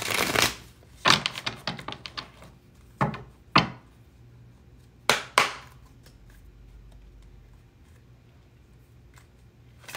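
Tarot cards being handled and shuffled: a swish at the start, a quick run of card flicks about a second in, then four sharp knocks in two pairs, followed by quiet handling.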